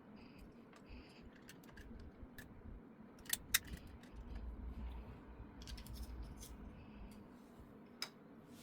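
Faint handling of small hard parts: a few scattered clicks and taps, the loudest a quick pair about three and a half seconds in and a single tap near the end, over a low rumble in the middle.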